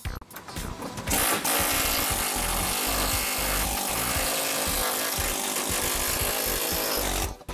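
Pneumatic air chisel running hard against rusty sheet steel, cutting off a Beetle's front hood-seal lip. The tool starts about a second in, runs steadily and stops just before the end.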